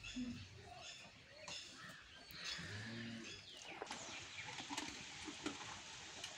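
Faint bird calls with a few low coos. In the second half come a few soft clicks and rustles of a rope halter being fitted on a horse's head.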